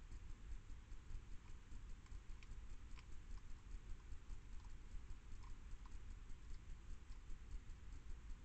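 Hedgehog eating from a metal bowl: faint, irregular little crunches and clicks over the steady hiss and low rumble of a trail camera's microphone.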